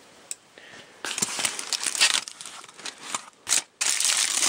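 Aluminium foil crinkling and crackling as hands pull it open and unwrap it, starting about a second in, with a short break just past the middle.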